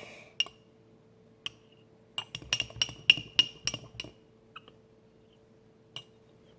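A stirring utensil clinking and scraping against the side of a slime-mixing container, working loose leftover glue. There are a few single clinks, then a quick run of them about two to four seconds in.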